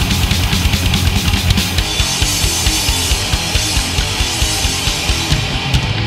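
Thrash metal song: heavy distorted electric guitars over fast, driving drums.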